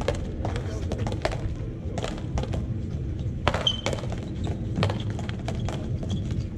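Paleta frontón rally: the ball cracks sharply off wooden paddles and smacks against the front wall and court in a quick, irregular run of knocks, over a steady low background.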